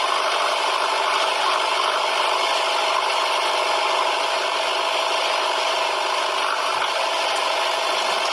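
Small electric motor and plastic gears of a battery-operated toy vehicle running, a steady rattling whir.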